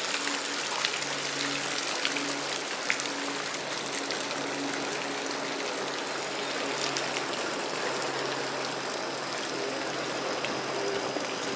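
A steady rush of splashing water from a fountain, even and unbroken, with small scattered splashes through it.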